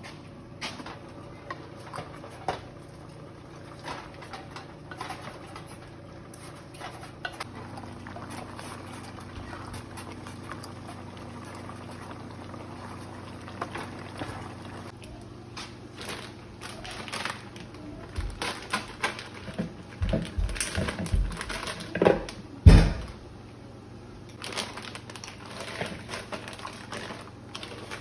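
Cooking sounds of pots, lids and utensils clinking and knocking, with a steady low hum underneath. The knocks grow busier in the second half, and the loudest comes about two-thirds of the way through.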